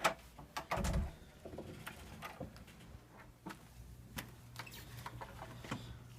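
A door knocking and thudding shut about a second in, then footsteps and small clicks at a walking pace, with a low steady hum coming in about halfway.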